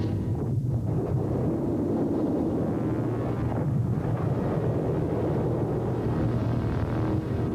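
Film soundtrack: a deep, steady rumble of futuristic industrial-city ambience, with a low synthesizer score underneath.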